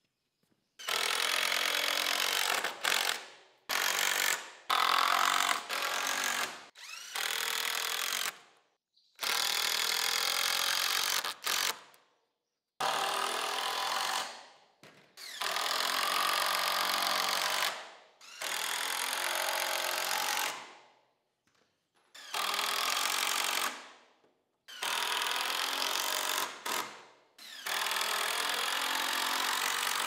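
Cordless drill/driver running in about a dozen bursts of one to three seconds each, driving screws into the lumber of the frame, with dead silence between bursts.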